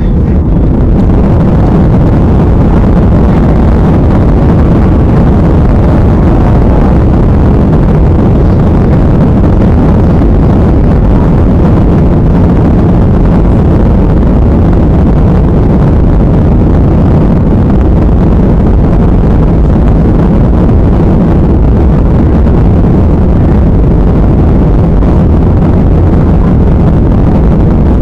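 Jet airliner cabin noise during the takeoff roll: the engines at takeoff power and the rush of the runway run, a loud, steady, deep rumble.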